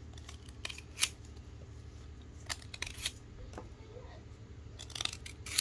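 A curved steel blade (da) whittling a bamboo sliver to a point: several short, sharp cutting strokes at irregular intervals, the loudest about a second in and at the very end.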